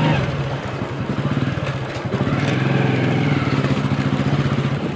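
Motorcycle engine running while riding, a steady low hum with fine even pulsing that grows a little stronger about two seconds in.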